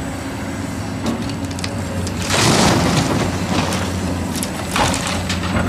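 Large Caterpillar hydraulic excavator running steadily, with the crunch and rattle of earth and rock as its bucket digs and dumps, loudest about two and a half seconds in and again briefly near the end.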